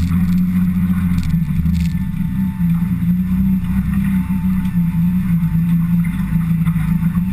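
Mitsubishi Pajero off-road race car being driven, its engine running steadily under way with its pitch dipping and rising slightly, heard close up from inside the front wheel well along with tyre and road noise.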